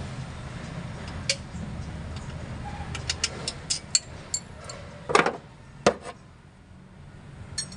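Metal clicks and knocks of hand tools and parts on a truck's A/C compressor and its mounting bolts, with a quick run of light clicks about three seconds in and the loudest knock about five seconds in, over a low steady rumble.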